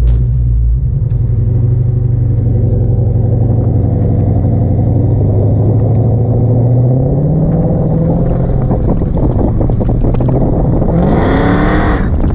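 Dodge Charger's Hemi V8 running steadily, its pitch rising about seven seconds in, then revved sharply once near the end.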